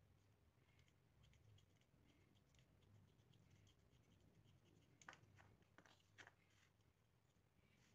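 Faint snips of small scissors trimming a piece of blue sheet into a round disc, with a few sharper clicks between about five and six and a half seconds in.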